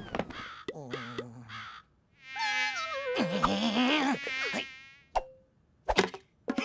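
Cartoon sound effects and nonverbal character noises: short sounds that bend in pitch, then a long wavering high whine of more than two seconds, and a few sharp clicks near the end.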